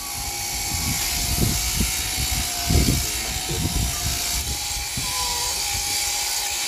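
Electric sheep-shearing machine running steadily, its handpiece buzzing as it clips through a long fleece, with a few low thuds underneath.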